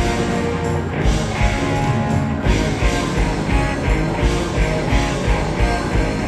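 Live rock band playing: electric guitars, bass, drums and keyboard amplified through a stage PA, over a steady drum beat.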